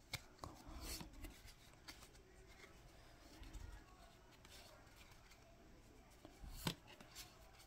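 Faint handling of trading cards: card stock sliding and tapping against card as cards are moved from the back of a small stack to the front. Scattered soft ticks, with the sharpest one about seven seconds in.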